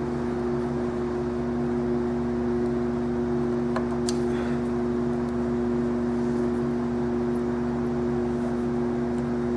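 A steady machine hum made of two constant tones over a low rumble, with a couple of faint clicks about four seconds in.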